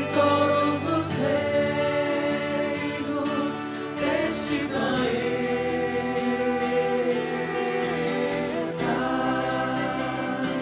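A small mixed choir singing a slow Christian devotional song in held notes, with a violin accompanying.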